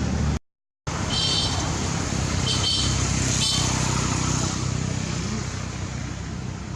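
Steady traffic noise, with a brief cut to silence just under half a second in, then three short high-pitched squeals between one and four seconds in.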